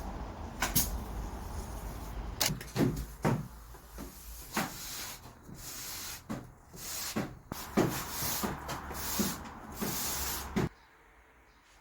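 Carpentry work on timber: irregular knocks and thuds, some with a short low ring, over a steady background noise. Everything cuts off suddenly near the end.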